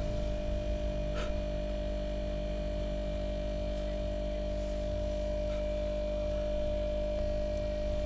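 A steady hum made of several unchanging tones, with a low drone beneath.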